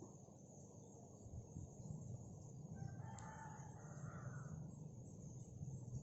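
A rooster crows once, faintly, a little before the middle, lasting about a second and a half. Crickets chirr steadily in the background.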